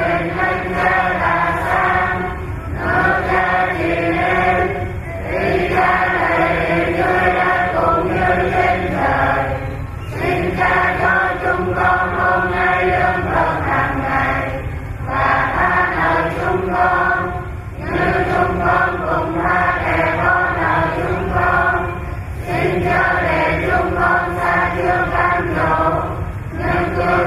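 Sung liturgical chant at Mass, voices through a sound system, in phrases a few seconds long with short breaks between them.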